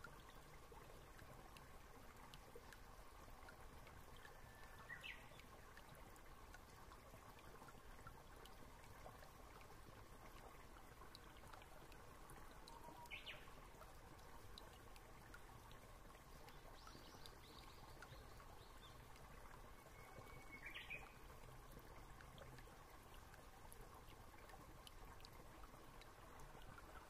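Near silence: faint steady room hiss, with a few faint short chirps now and then.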